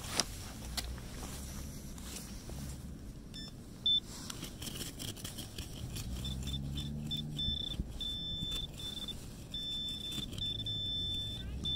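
Handheld metal detector pinpointer probe beeping as it is pushed through wood chips: short high beeps start a few seconds in, come faster, and run into longer steady tones near the end as it closes in on a buried dime. Wood chips rustle around the probe.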